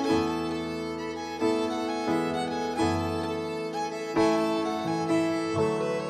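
Background instrumental music led by violin, with new notes coming in every second or so.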